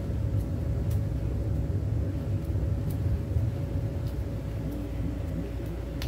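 Steady low rumble with a faint constant hum running under it, and a few light ticks.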